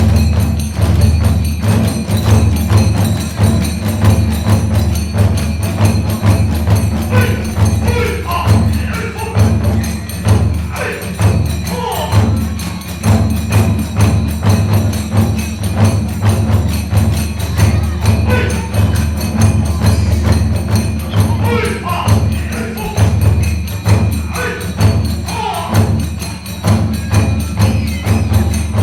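Kagura ensemble music: big and small taiko drums beating a fast, driving rhythm, with tebiragane hand cymbals clashing over it and fue bamboo flutes playing short gliding phrases.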